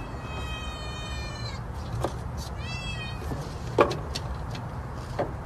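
A cat meowing twice in a high voice: one long, slightly falling meow, then a shorter one. A sharp knock about four seconds in is the loudest moment.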